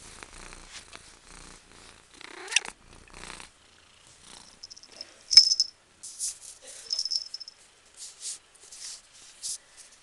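Domestic cat purring, with a short soft meow about two and a half seconds in. About five seconds in, the small metal bell on her collar gives a sharp ringing jingle, the loudest sound, followed by a lighter jingle and rustling of fur and blanket.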